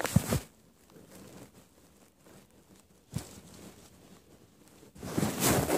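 Plush stuffed animals rustling and rubbing against the microphone as they are handled and moved, in bursts at the start, about three seconds in, and near the end, with quieter fabric shuffling between.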